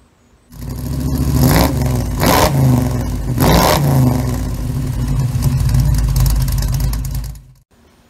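Car engine revving loudly: three quick rev blips in the first few seconds, then running steadily until it cuts off suddenly near the end.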